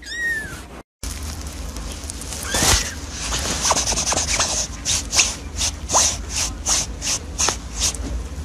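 A kitten gives one short mew that falls in pitch. After a cut, a quick run of short hissy bursts follows, about three a second, over a low background hum.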